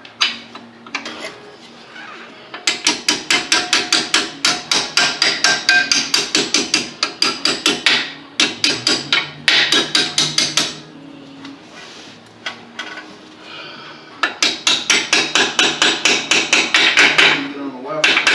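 Hammer blows on metal, struck rapidly at about four or five a second in two long runs with a short pause between, each strike ringing briefly.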